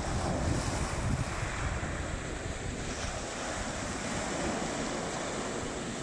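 Small sea waves breaking and washing up and back over a pebble beach in a continuous wash of surf.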